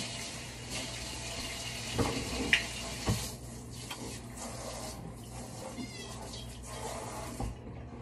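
Kitchen tap running into the sink as raw shrimp are rinsed under it, with a few light knocks about two and three seconds in.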